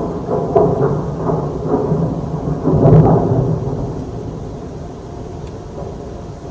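A deep, unexplained rumble with drawn-out groaning tones. It swells, peaks loudest about three seconds in, and then fades. It is one of the strange noises people report hearing over wide areas.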